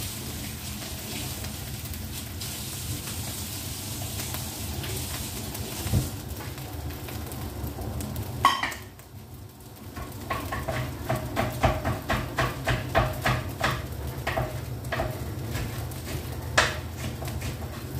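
Egg fried rice frying in a wok with a steady faint sizzle over a low hum. About halfway through a dish clatters loudly, and a run of quick ringing clinks of a utensil against dishes follows over the next several seconds.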